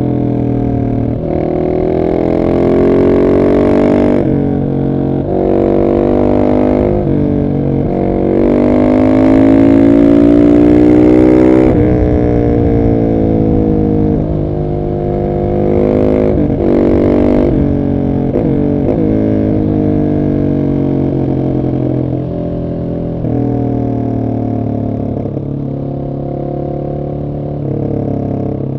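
Husqvarna 701 SM's single-cylinder engine through a de-catted Arrow exhaust, ridden hard: the revs climb again and again, each climb broken by a short dip at the gear change, with the longest pull about eight to twelve seconds in. In the second half it runs lower and steadier, with a few brief drops in revs.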